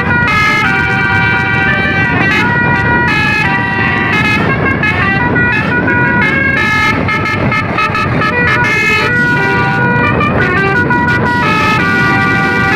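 Bus basuri telolet horn, a multi-trumpet musical horn, playing a tune as a quick run of held notes that change pitch several times a second, over a steady low rumble.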